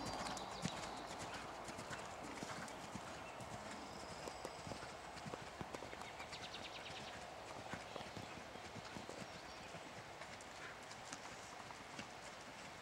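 Hoofbeats of a ridden horse on sand arena footing: a run of soft, irregular thuds that grows fainter as the horse moves away.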